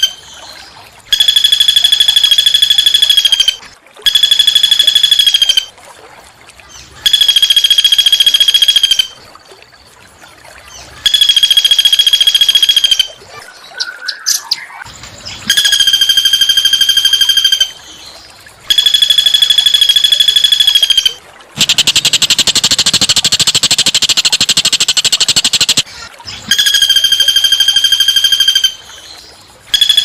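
Recorded small songbird repeating a harsh, buzzy trill at one steady pitch, each about two seconds long with short pauses between. One call a little past the middle is a longer, noisier rasping rattle.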